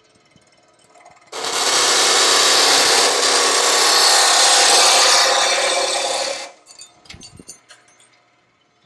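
Baileigh BS-712MS metal-cutting bandsaw, in vertical mode at its fastest speed, cutting through a piece of aluminum with its aggressive blade. A loud, dense sawing rasp starts about a second and a half in, lasts about five seconds and cuts off as the blade comes through. Faint clicks follow.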